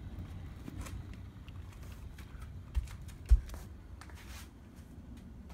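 HO-scale model freight cars rolling along the track, with a steady low rumble and scattered light clicking from the wheels. Two short low thumps a little past the middle are the loudest sounds.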